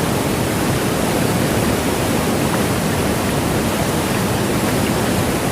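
Waterfall rushing: a loud, steady roar of falling water, unbroken throughout.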